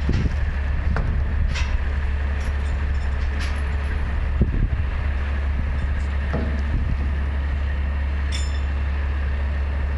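Large diesel engine idling with a steady low rumble, with scattered knocks and clunks, about eight in all, as heavy wooden cribbing blocks are lifted and set down on a lowboy trailer deck.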